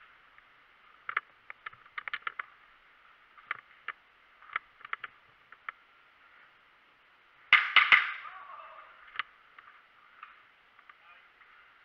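Scattered light clicks and knocks, then two sharp cracks about a third of a second apart from an airsoft pistol firing, followed by a brief voice calling out.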